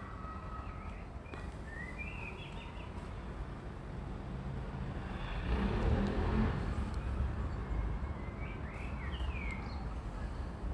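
Small birds chirping in short, quick calls, one group about two seconds in and another near the end, over a steady low outdoor rumble. A broad rush of noise swells up in the middle.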